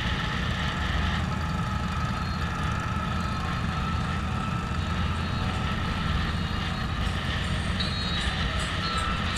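Low, steady rumble of motorcycle engines running at slow speed in a mass ride, with a few light ticks near the end.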